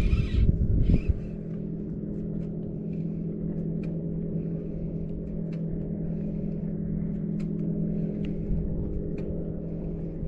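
Electric trolling motor on a fishing kayak running with a steady hum. A louder low rumble comes in the first second, and faint scattered clicks sound over the hum.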